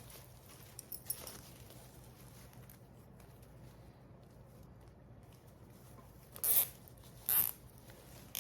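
Light handling of ribbon and garland, then two short zipping sounds near the end: a plastic zip tie being pulled through its ratchet to tighten it around the bow.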